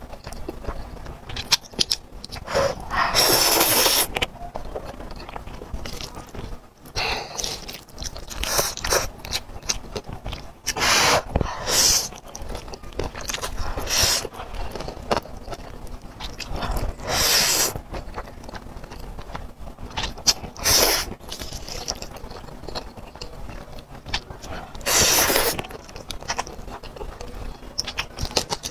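Close-miked mukbang eating of black bean sauce noodles. Every few seconds there is a loud, noisy slurp about a second long, with wet chewing and lip smacks in between.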